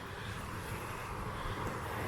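Steady rushing of a mountain stream running over bare rock through small cascades, growing slightly louder.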